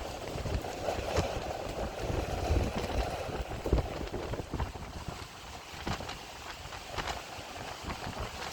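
Storm wind gusting hard against the microphone as a rough, rumbling rush, with scattered taps and rattles throughout.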